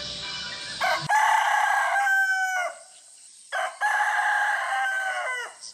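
A rooster crowing twice, each crow a long held call that drops in pitch at the end, with a short pause between the two.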